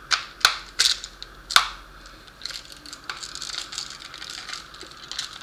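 Sharp clicks and taps from small hard objects being handled: four louder clicks in the first couple of seconds, then lighter, scattered ticking.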